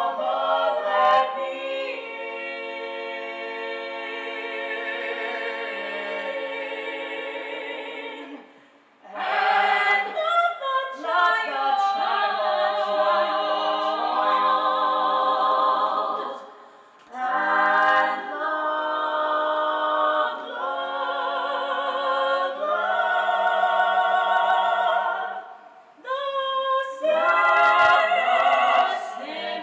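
Small vocal ensemble singing in close harmony, holding long chords in phrases broken by short pauses about every eight seconds.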